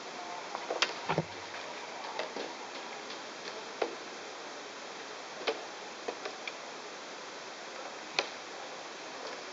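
Scattered sharp clicks and knocks of fishing gear being handled and set in place on a plastic crate, an aluminium pole among it, over a steady background hiss. The loudest knocks come about a second in; single ones follow every second or two.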